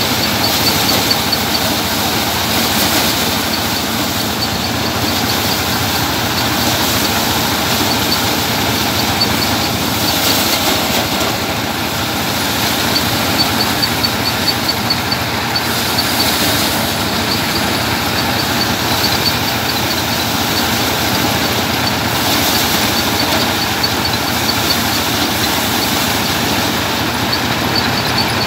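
Belt-driven paddy thresher running steadily under load as bundles of rice straw are fed into its drum: a continuous loud mechanical din, with a faint fast ticking that comes and goes.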